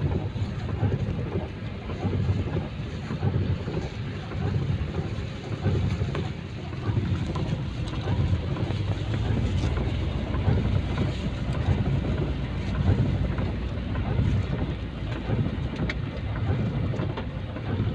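Wind buffeting the microphone: a continuous, gusty low rumble with a fainter hiss above it.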